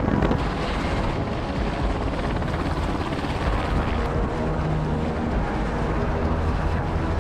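Aircraft noise: a steady, continuous drone with a low hum underneath.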